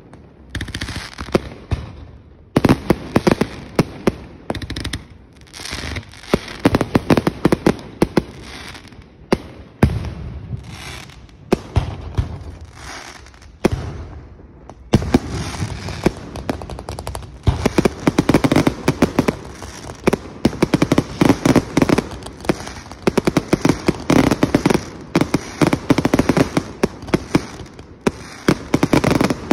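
Aerial display fireworks going off in rapid volleys of sharp bangs and crackles, dense and loud throughout, with a couple of brief lulls before the barrage picks up again.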